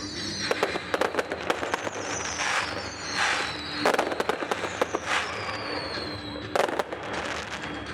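Fireworks display: a quick run of bangs and crackles from bursting shells, with three long whistles that fall in pitch. Two of the loudest bangs come about four and six and a half seconds in.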